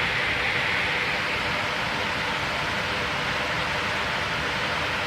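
Otter Creek waterfall running in spring flood, a steady, unbroken rush of heavy, forceful water.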